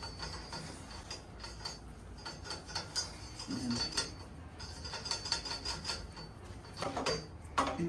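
Scattered light clicks, taps and rubbing as an electrical cord and plug are fed down through a hollow light post.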